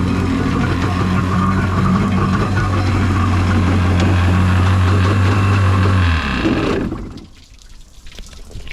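Yamaha Wave Blaster jet ski's two-stroke engine running at a steady idle, then shut off about six seconds in and spinning down within a second.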